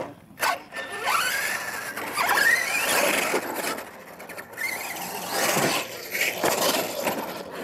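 R/C monster truck's electric motor and drivetrain whining, rising and falling in pitch as the throttle is worked, with its tyres churning across loose dirt as it accelerates.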